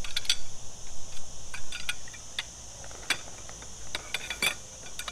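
Scattered light clicks and knocks of poles from a folding camp bed being handled and slid into its fabric carry bag, over a steady high-pitched insect buzz.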